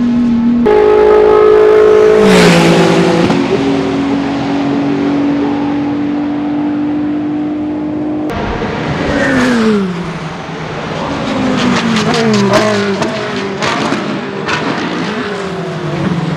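Ferrari Challenge race cars' engines at racing speed, heard across several cuts. A brief rushing surge comes about two seconds in, then a steady high engine note holds. In the second half the engines drop in pitch through downshifts, with a run of sharp exhaust pops and crackles on the overrun.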